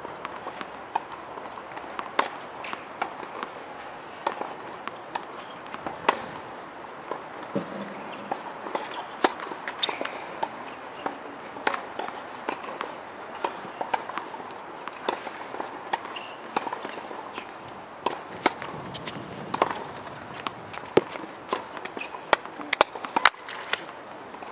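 Tennis balls striking racquets and bouncing on the court: many sharp, irregular pops over a steady outdoor hum, coming thicker and louder in the second half.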